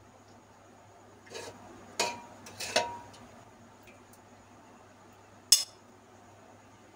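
A steel serving spoon clinking against an aluminium cooking pot and a glass serving bowl while curry is ladled out: a soft knock, then a few ringing clinks about two seconds in, and one sharp, loudest clink near the end.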